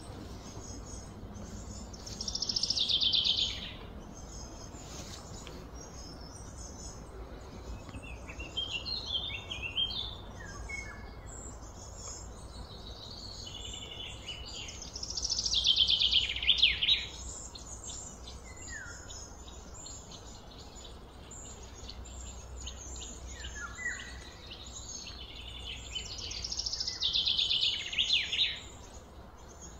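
Birds chirping and calling, with a louder, rapid descending trill that comes three times, each lasting one to two seconds: a couple of seconds in, around the middle, and near the end.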